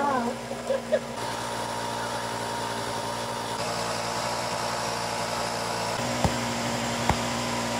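A steady engine-like hum, with a few sharp knocks of a tool striking wood near the end, just under a second apart.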